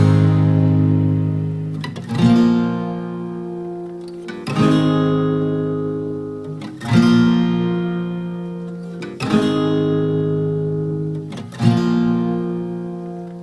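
Background music: an acoustic guitar strumming slow chords, one about every two seconds, each left to ring out and fade before the next.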